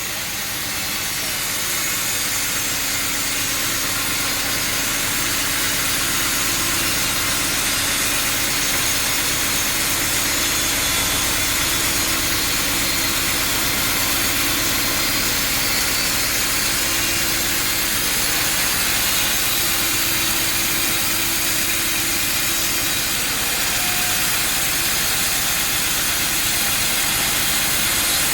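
Sawmill machinery running steadily: a dense, even hiss over a low steady hum, with no break or change.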